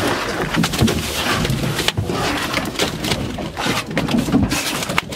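Freshly caught vermilion rockfish slapping and thudding as they are tossed by hand from a pile on the deck into a boat's fish hold, a run of repeated wet knocks.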